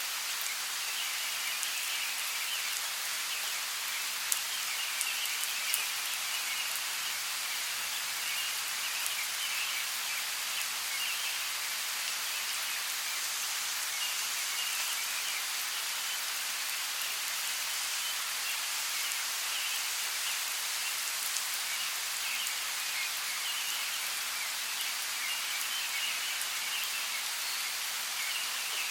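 Steady rainforest rain, an even hiss with a few sharper ticks of single drops landing about four to six seconds in.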